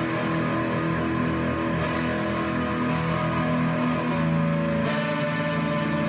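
Modded solid-body 12-string electric guitar played through a Stone Deaf Fig Fumb fuzz pedal into a Boss Katana amp: heavily fuzzed chords strummed and left to ring, re-struck about once a second.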